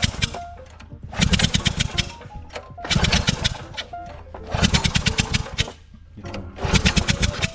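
Small single-cylinder mini-bike engine being pull-started, turning over in four short bursts about a second and a half apart without settling into a steady run. Music plays underneath.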